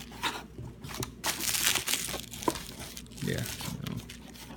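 Packaging crinkling and rustling in irregular bursts with a few small clicks, as the contents of an unboxed promo box are handled.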